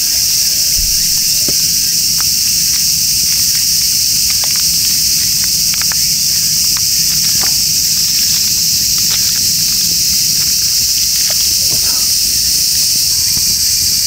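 A dense, steady chorus of cicadas singing loudly, with scattered sharp crackles and pops from a wood campfire.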